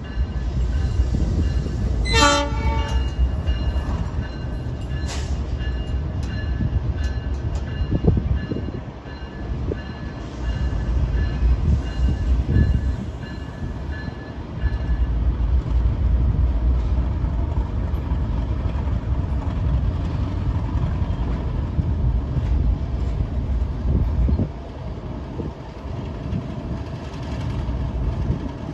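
Diesel-hauled freight train running through the station with a heavy low rumble throughout. A short horn blast sounds about two seconds in, and a high steady tone carries on over the first half.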